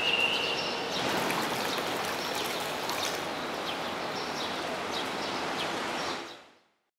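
Steady rushing and splashing of pool water stirred by a small ROV's thrusters at the surface, with faint scattered clicks; it fades out about six seconds in.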